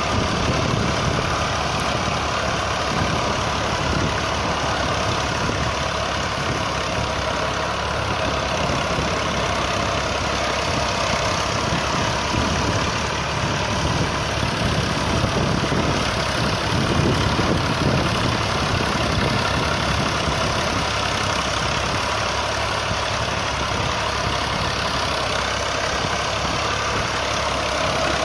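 Fiat 480 tractor's three-cylinder diesel engine running steadily under load while pulling a disc plough through dry soil.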